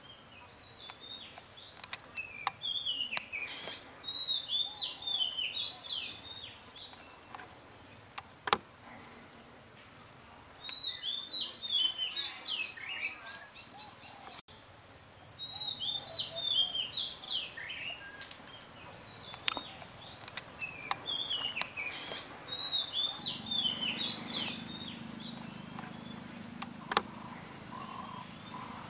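A songbird singing: short bursts of quick high chirps, repeated every few seconds with pauses between. A few sharp clicks stand out between the phrases, and a faint low hum comes in near the end.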